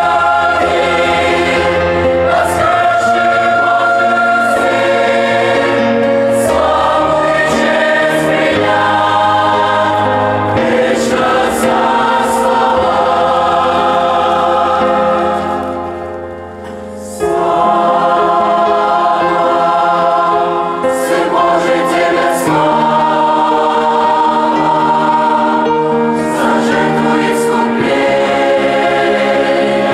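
A church choir sings a Russian-language hymn in full harmony, holding long chords. The sound dips briefly at a phrase end about sixteen seconds in, then comes back at full strength.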